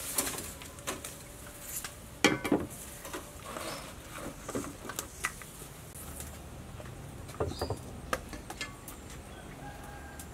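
Plastic jar lids clicking and a metal spoon tapping and scraping as seasonings are scooped from small jars and added to a pot, in scattered short knocks and clinks. Birds call faintly in the background.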